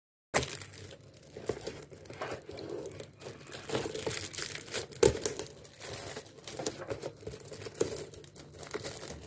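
Clear plastic wrapping crinkling as hands pull at it around a cardboard cake box, in irregular crackles with a few sharper snaps.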